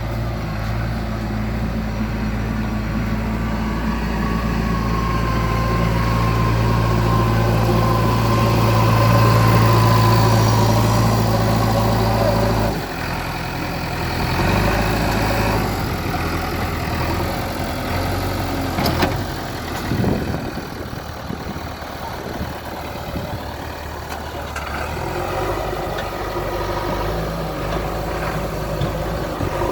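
Heavy diesel engines of a backhoe loader and a tipper lorry as the backhoe pushes the lorry. A strong, steady engine note holds for about the first twelve seconds, then drops suddenly to a lower, uneven running, with a couple of sharp knocks about two-thirds of the way in.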